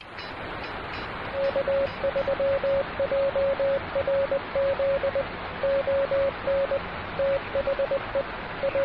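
HF transceiver receiving band noise as a steady hiss, with a Morse code (CW) signal coming in as a single beeping tone keyed in short and long elements from about a second and a half in.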